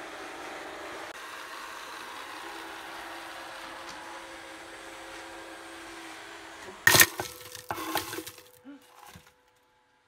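Robot vacuum cleaner running with a steady whir and hum. About seven seconds in, a sudden loud knock is followed by about a second of clattering knocks.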